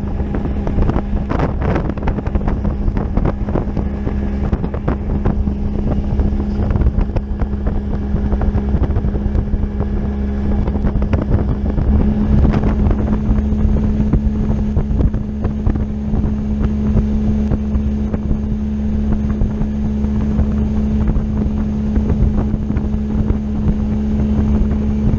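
Mercury two-stroke outboard motor running steadily while the boat is underway, with wind buffeting the microphone. The engine note steps up slightly about halfway through.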